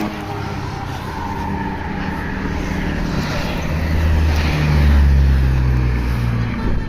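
A bus engine running as the bus draws near, growing louder to a peak about five seconds in.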